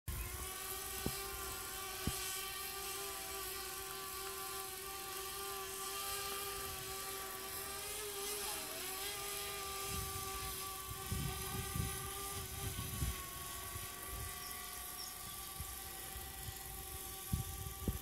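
DJI Spark quadcopter's motors and propellers whining steadily in several tones at once, the pitch dipping briefly about halfway through. There are a few low thumps about two-thirds of the way in.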